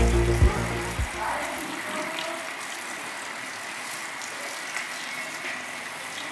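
Background music fading out in the first second, then a steady splash of mineral water running from a metal wall spout into a stone basin, with faint distant voices.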